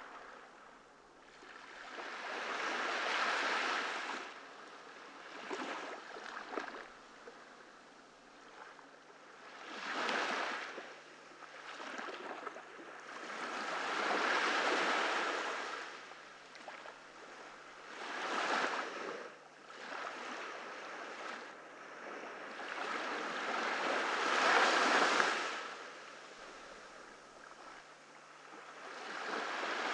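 Ocean waves breaking on a beach: surges of surf wash in and fade every few seconds, the loudest about three-quarters of the way through.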